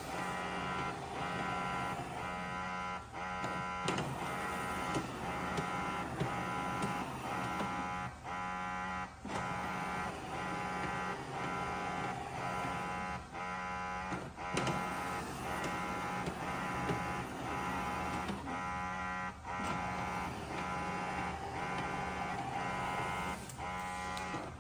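Shark PowerDetect NeverTouch Pro robot vacuum and mop running: a steady whirring motor whine made of many tones, pulsing with brief dips about once a second and a few longer breaks.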